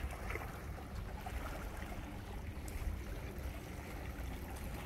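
Seaside ambience: an even wash of sea water with a steady low rumble, as of wind on the microphone.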